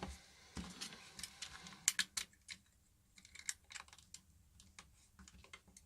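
Small, irregular clicks and taps of a tool working at a PP3 battery's plastic casing and cell stack as it is prised apart, a few sharper clicks about two seconds in.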